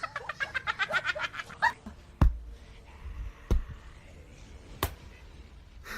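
An animal's rapid string of short, high calls, about eight a second, for the first couple of seconds, then three sharp knocks evenly spaced over the next few seconds.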